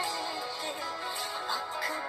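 Recorded Indian dance song playing.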